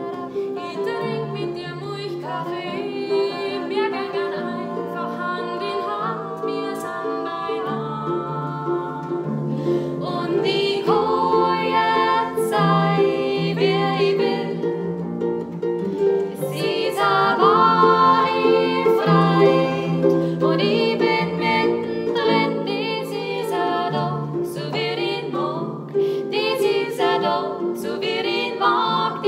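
Female voices singing a song in dialect, accompanied by a plucked harp.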